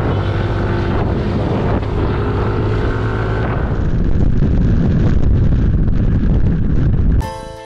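Motor scooter riding along, its engine running under heavy wind buffeting on the rider's camera microphone. A short burst of music cuts in just before the end.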